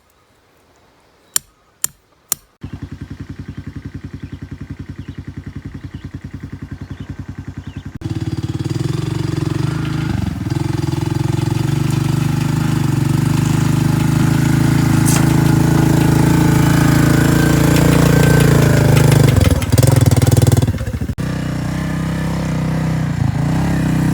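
A few sharp clicks, then a small vehicle's engine running steadily. It gets louder about a third of the way in and dips briefly a few times as the throttle changes.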